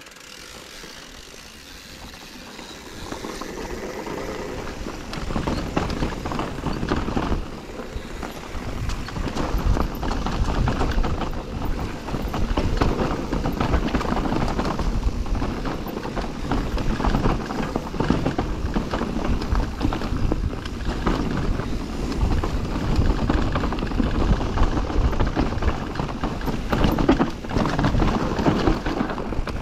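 Enduro mountain bike ridden down a rough trail: tyres rolling over dirt, rocks and roots, with a constant rattle and knocking of chain, suspension and frame. It starts quieter and builds over the first five seconds as the bike picks up speed.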